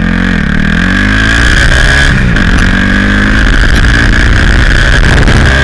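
Turbocharged Honda Titan 160 single-cylinder motorcycle engine revving with the bike stopped, its pitch climbing, dipping about two seconds in and climbing again, over a steady high whine. The blow-off valve is disabled and a downpipe fitted in an attempt at turbo flutter, which comes out only very faint.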